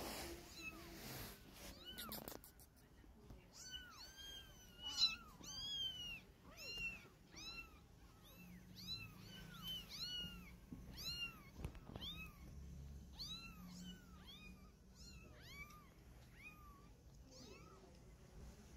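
Kittens mewing over and over: short, high cries that rise and fall in pitch, about two a second, fading out near the end. Fabric rustles at the start before the mewing begins.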